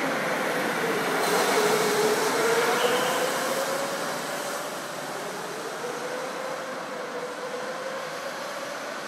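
Go-kart passing close and driving away round the track. Its motor's hum dips in pitch as it goes by, then rises and falls gently, with a broad hiss over it. The sound is loudest about two seconds in and then fades a little.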